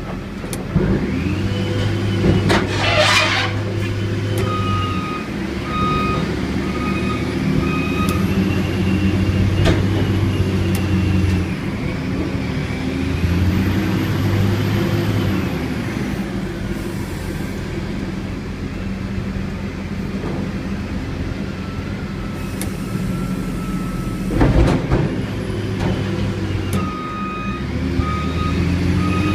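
Diesel engine of a container top-loader running and revving up and down several times as the mast works. A short hiss of air comes about three seconds in, and a reversing alarm beeps in two spells, once around six seconds in and again near the end.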